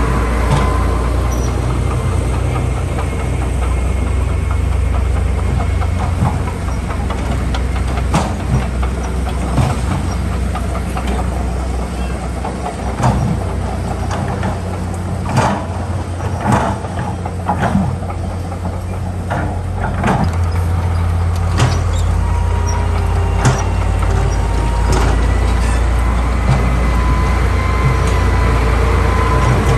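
Heavy diesel earthmoving machinery running steadily under load, with scattered metallic clanks and knocks through the middle stretch.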